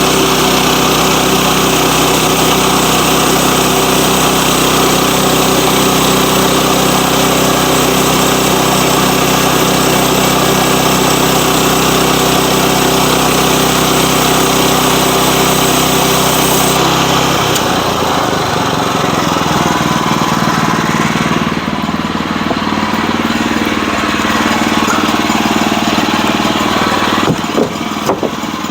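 Engine-driven sawmill running steadily at a loud level; about two thirds of the way through its sound shifts and it carries on in a different tone, with a few short knocks near the end.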